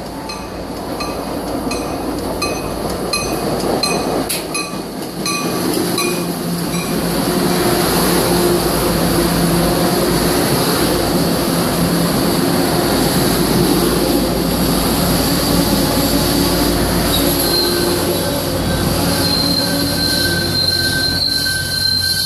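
MBTA commuter train, cab car leading and F40PHM-2C diesel locomotive pushing, pulling into a station. A repeating ding sounds in the first few seconds; then the rumble of the passing coaches builds and stays loud. From about three-quarters through, a steady high squeal of wheels and brakes rises as the train slows.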